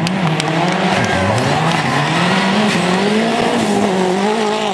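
Toyota Celica rally car's engine revving hard under acceleration, its pitch climbing in long sweeps and dropping at each gear change, with the tyres sliding on loose gravel.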